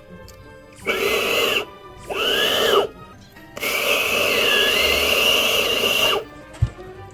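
A beatboxer's voice making imitation sound effects: two short sounds with gliding pitch, then a longer one of about two and a half seconds.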